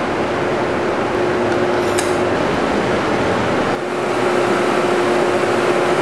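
Steady machine hum and hiss with a held tone, with one light metallic clink about two seconds in.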